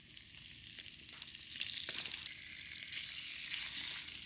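Sea cucumber pieces sizzling in hot oil in a wok, the hiss growing louder about a second and a half in, with a single sharp click near the middle.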